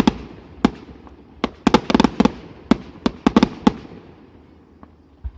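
Aerial fireworks shells bursting in quick succession: a rapid barrage of sharp bangs, some in tight clusters, each with a short rumbling echo. The bangs thin out after about four seconds, with one last report near the end.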